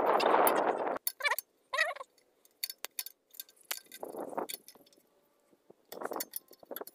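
Metal wrench clinking and scraping against the exhaust-manifold nuts and bolts as they are loosened by hand: scattered light clinks, with a rushing noise in the first second and two short squeaky chirps soon after.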